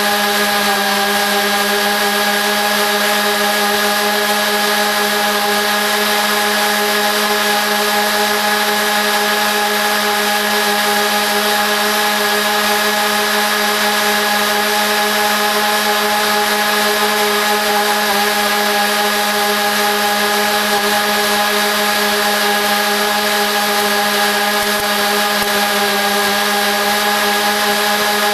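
Lawn mower engine running steadily, sped up four times so that it plays as a high, even buzz.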